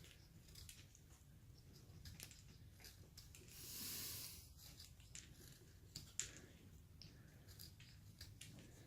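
Faint hand whittling of basswood with a carving knife: scattered small snicks and scrapes of the blade, with one longer slicing cut about four seconds in and a sharp click about six seconds in.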